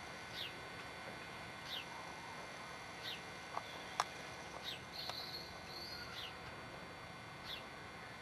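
A small bird calling: a short, high, falling note repeated about every second and a half, with a brief higher twitter partway through. A single sharp click sounds about four seconds in.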